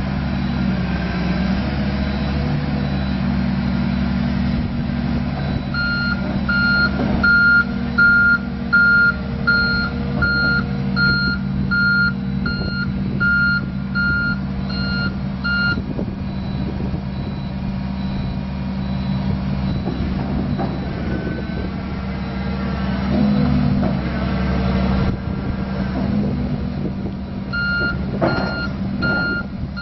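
Casagrande B105NG hydraulic piling drill rig's diesel engine running steadily, with its motion alarm beeping about one and a half times a second for some ten seconds starting about six seconds in, and again near the end. Occasional knocks from the machine.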